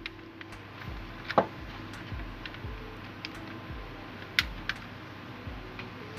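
A few light clicks and taps from hands handling an opened laptop's cables and connectors, the loudest about a second and a half in and two quicker ones just past the middle, over a steady low hum.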